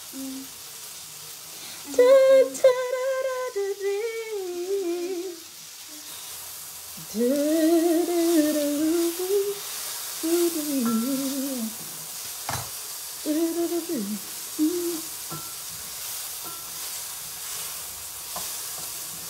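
A woman humming a wordless tune in three short phrases, with a single sharp click about two-thirds of the way through, over a faint steady hiss.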